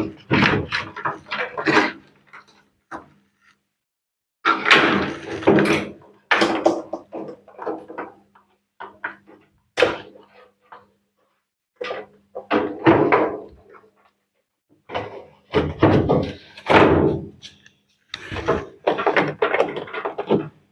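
Irregular knocks, rattles and clicks of plastic and metal washing-machine parts being handled, with short pauses between bursts. This is the handling noise of an LG top-load washing machine being put back together, its wiring and fittings being worked into place.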